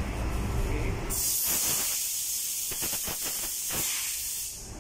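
Compressed-air blow gun with a long nozzle letting out a steady hiss of air, starting about a second in and cutting off near the end after about three and a half seconds.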